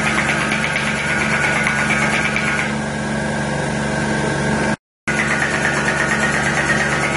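Air compressor running steadily, filling to supply the ASMI pneumatic spinal mobilisation instrument, with fast fine tapping from the instrument on the back that stops for about two seconds partway through. The sound cuts out for a moment just before five seconds in.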